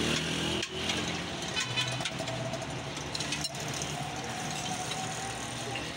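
Roadside traffic noise with a vehicle engine running nearby.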